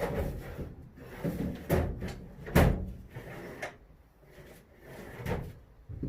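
Handling noise on a workbench: a series of knocks and clatters as things are rummaged for and set down, the loudest knock about two and a half seconds in.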